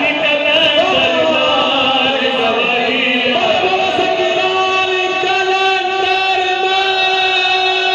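A group of men singing a devotional chant together into microphones, amplified over a sound system. About three and a half seconds in, the voices settle into a long held note.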